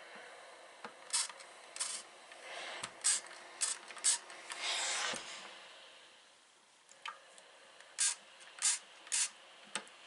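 Steam iron hissing in a series of short spurts of steam, with one longer hiss about halfway through, as wool appliqué pieces are steamed flat, plus a couple of soft knocks.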